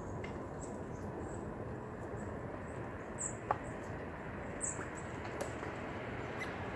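Steady low outdoor background noise with a few short, high chirps from small birds. The two clearest chirps come about three and four and a half seconds in, and a single faint tick falls between them.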